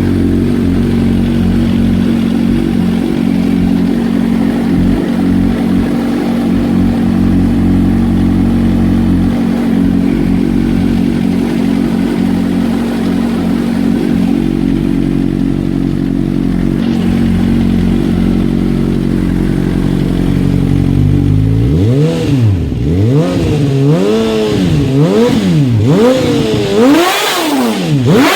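2010 Suzuki GSX-R1000's inline-four engine idling steadily, then revved up and let fall back several times in quick succession for the last six seconds or so.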